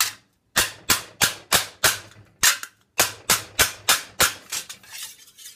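Mallet blows on a thin 22-gauge stainless steel sheet held over a steel stake, a quick, steady run of sharp strikes at about three to four a second that starts about half a second in. The sheet is being bent into a curve over the stake.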